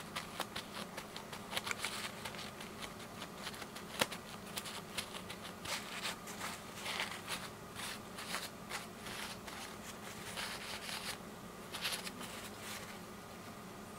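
A paper wipe scrubbing and rubbing over a printed circuit board to clean and dry it: quick, irregular scratchy rustles and ticks, with a few louder swipes, dying away in the last second or so.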